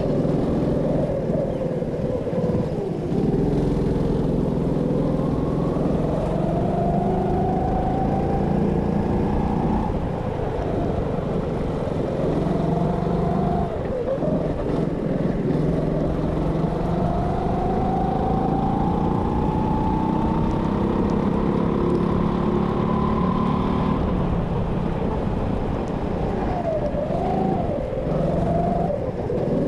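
Go-kart engine heard from on board, revving up in long rising sweeps on the straights and falling away as the kart slows for corners, several times over.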